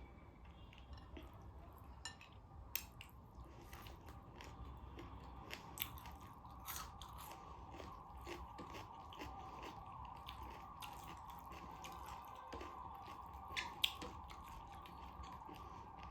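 A person chewing and biting food close to the microphone: frequent small wet clicks and crunches, with a sharper one near the end, over a faint steady hum.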